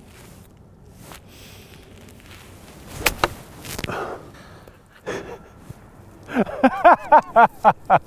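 Golf club striking the ball from the rough with a single sharp click about three seconds in. From about six seconds two men laugh loudly.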